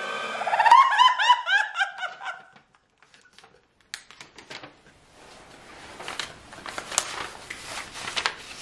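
Laughter: a rapid run of high-pitched 'ha's for about two seconds, then a short pause, then quieter breathy laughter.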